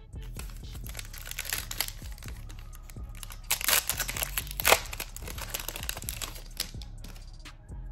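Foil booster-pack wrapper of a Flesh and Blood trading-card pack being torn open and crumpled by hand, crinkling throughout with the loudest crackles about three and a half and four and a half seconds in.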